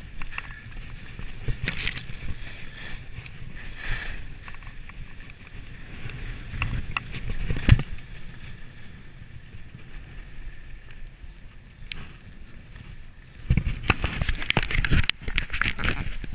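Skis running and scraping over packed snow with wind buffeting the camera microphone in a low rumble. Short sharp scrapes or knocks come now and then, and near the end a stretch of louder scraping and knocking sets in.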